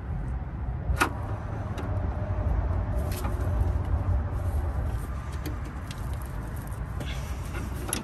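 Metallic clicks of locking pliers and a ratchet working the nut of a new sway bar link: one sharp click about a second in, then scattered fainter ticks. A steady low rumble lies under them throughout.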